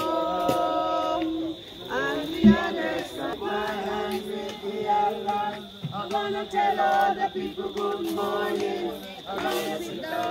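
A group of voices singing a hymn together in slow, held notes. A single sharp knock about two and a half seconds in is the loudest moment.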